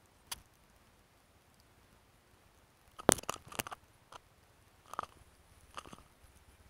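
Scattered crackles and clicks from a handheld phone being gripped and jostled while running, loudest in a quick cluster about three seconds in.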